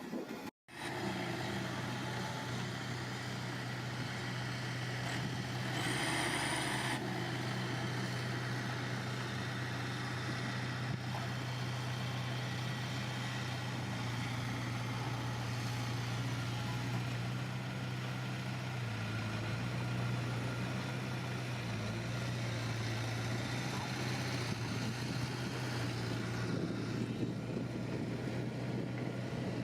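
Diesel engine of heavy earthmoving machinery running at a steady pitch, with a short hiss about six seconds in.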